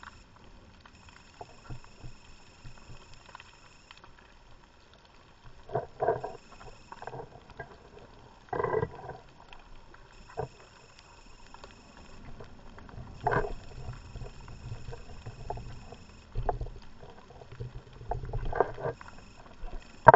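Muffled underwater sounds of a scuba diver breathing on a closed-circuit rebreather: four breath surges several seconds apart, with faint scattered clicks between them.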